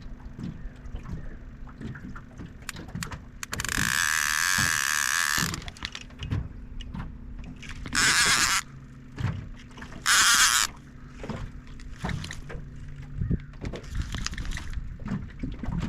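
Fishing rod and reel worked while a small channel catfish is fought in from a boat: scattered clicks and knocks over a low steady hum. Three loud hissing bursts stand out, one about two seconds long a few seconds in, then two shorter ones near the middle.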